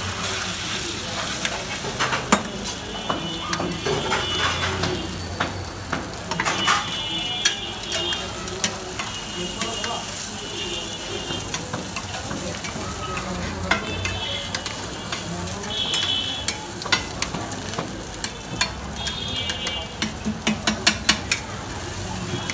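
Steady sizzle of cooking oil, with sharp small clicks and cracks as quail eggs are cracked by hand into a steel bowl, including a quick run of taps near the end.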